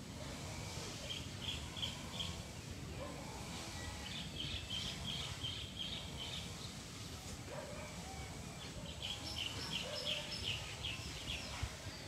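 A bird calling in three runs of quick repeated chirps, about four or five notes a second: a short run about a second in, a longer one from about four seconds, and another from about nine seconds. Faint outdoor background noise underneath.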